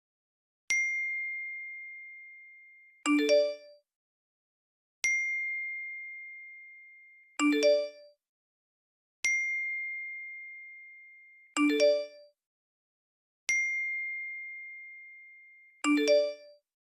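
iPhone notification tones: a single high ding that rings and fades over a couple of seconds, alternating with a short chime of several notes. The pair repeats about every four seconds.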